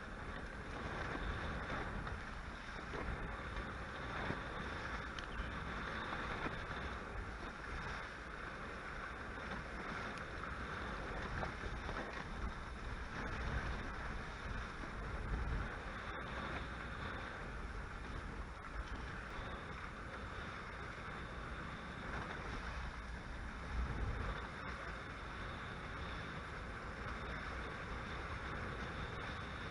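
Steady rush of wind and water from a Hobie Cat 16 catamaran sailing fast in strong wind, about 15 knots. Wind buffets the microphone in low gusts, strongest about halfway through and again a little later.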